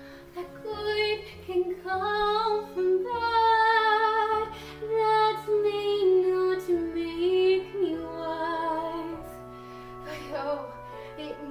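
A teenage girl singing a slow musical-theatre ballad solo, holding long notes with vibrato over a sustained backing accompaniment.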